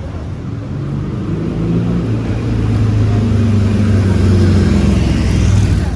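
A motor vehicle's engine running close by on the street, growing steadily louder, then cutting off abruptly at the end.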